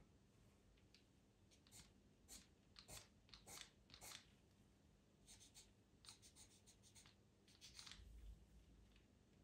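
Faint scratching of a Faber-Castell pastel pencil on Pastelmat paper, many short irregular strokes, some coming in quick runs.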